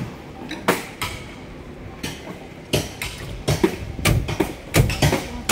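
Footsteps through wet, muddy ground at walking pace: a dull thud with each step, about eight in all, coming closer together and louder in the second half.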